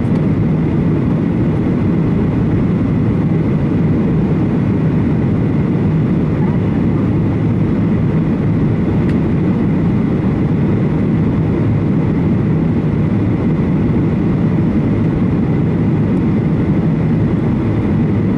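Steady cabin noise of a jet airliner in flight, heard inside the cabin by the wing: an even, deep rush of engines and airflow, with a faint high steady tone over it.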